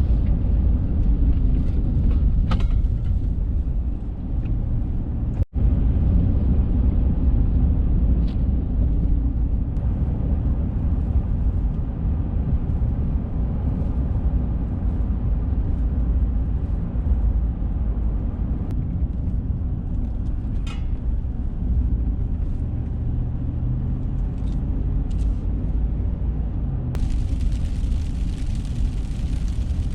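Pickup truck driving on the road: a steady low engine and road rumble, with a brief break about five seconds in and a hiss that joins near the end.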